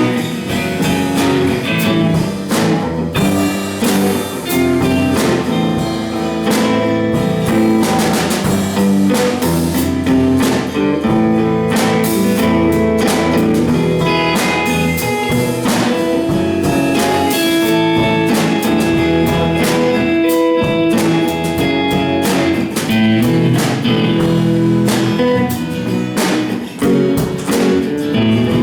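Live rock band playing an instrumental passage, with guitars over a drum kit keeping a steady beat.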